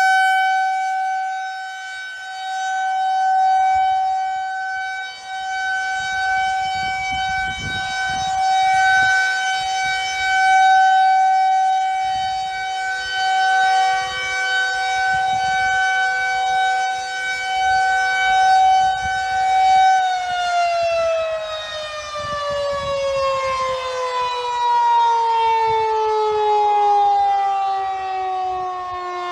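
Federal Signal 2001 rotating tornado siren sounding a steady tone that swells and fades in loudness as the horn turns. About two-thirds of the way in it shuts down, its pitch falling steadily as it winds down at the end of the test.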